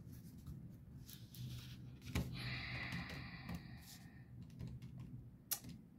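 Casio FC-100V financial calculator being set down on paper with a knock about two seconds in, a short rustle, then scattered soft key clicks as a calculation is keyed in.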